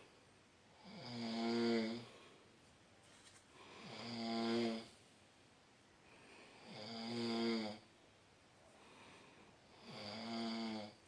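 Snoring: four long snores about three seconds apart, each one swelling louder and then stopping abruptly, with quiet in between.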